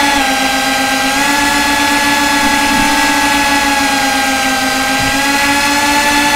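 FPV quadcopter's electric motors and propellers whining steadily, picked up by the drone's own onboard camera. The pitch dips and rises slightly a few times as the throttle changes.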